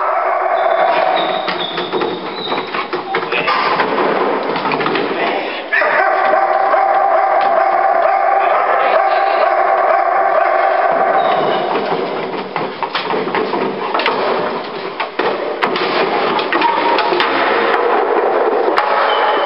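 Background music with a singing voice, its held notes shifting every few seconds.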